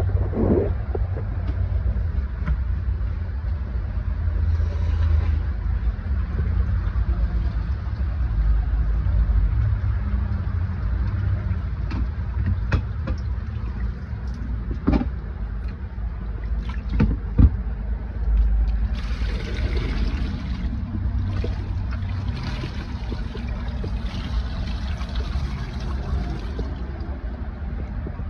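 Steady low machinery rumble, with a few sharp clicks and, about two-thirds of the way through, a stretch of hissing rush.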